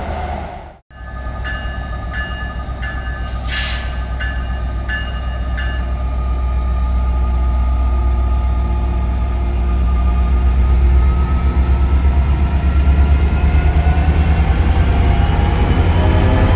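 NJ Transit train moving through the station: a low rumble that grows louder through the clip, with a bell ringing in even strokes about every 0.7 s during the first few seconds and a short hiss of air in among them. A brief cut-out just under a second in.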